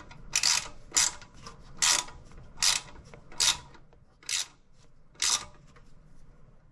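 Ratchet wrench clicking in short strokes, roughly one a second, as a bolt is tightened down.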